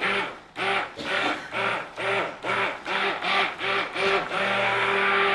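Handheld immersion (stick) blender mixing soap batter in a large stainless steel pot. It is switched on and off in quick pulses, about three a second, each revving up and dropping, then held on steadily from about four seconds in.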